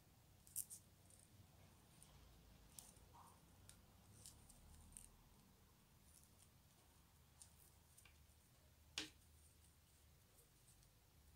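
Faint, irregular clicks of thin wooden skewers used as knitting needles tapping together as stitches are worked, over near silence; the sharpest click comes about nine seconds in.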